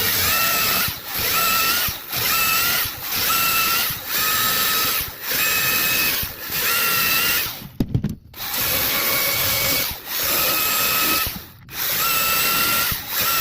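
DeWalt 60 V battery top-handle chainsaw's electric motor whining as it cuts through a log, in short bursts of about a second over and over, the pitch rising briefly each time the trigger is squeezed. The chain is running hot enough to loosen a little.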